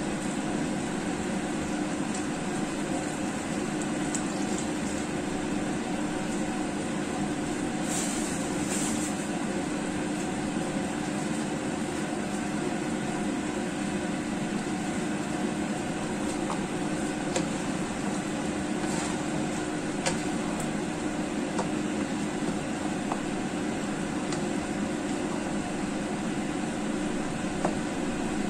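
A steady kitchen hum, with a fan-like drone and a low tone, over a pan of chicken-wing and potato curry simmering, with a few faint pops and clicks.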